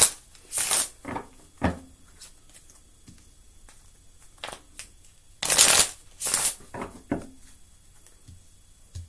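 A deck of oracle cards shuffled by hand in short bursts: two near the start and two more a little past halfway, with light card clicks and taps in between.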